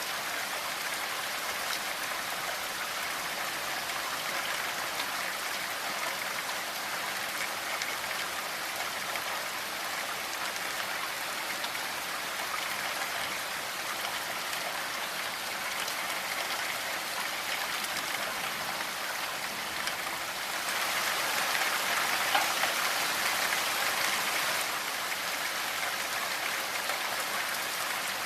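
Steady rainfall, an even hiss of many drops, swelling louder for a few seconds about two-thirds of the way through.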